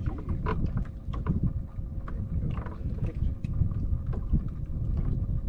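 Wind rumbling on the microphone aboard an open fishing boat, with scattered small knocks and clicks of gear being handled on the deck.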